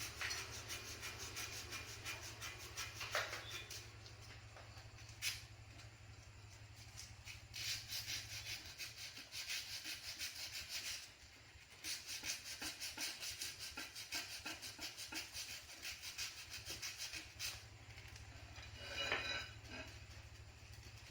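Fast back-and-forth scrubbing or rubbing strokes on a motorcycle brake part during cleaning, in runs of a few seconds with short pauses and an occasional click.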